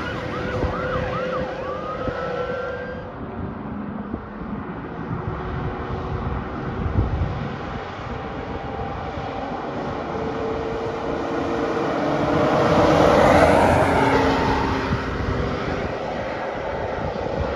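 Fire engine siren on a fast yelp, about four rising-and-falling sweeps a second, fading out over the first two or three seconds as the brush truck drives away. Road noise follows, then a second fire truck passes close by, loudest about two-thirds of the way through.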